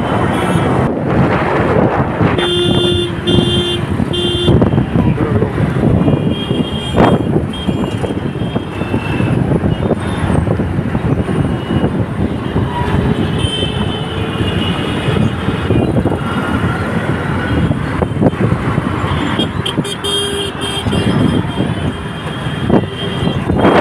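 Busy street traffic noise, with a vehicle horn honking three short times in quick succession a few seconds in and a briefer honk near the end.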